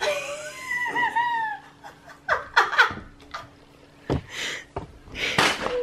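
A woman laughing: a high-pitched, wavering giggle for about the first second and a half, then short breathy bursts of laughter.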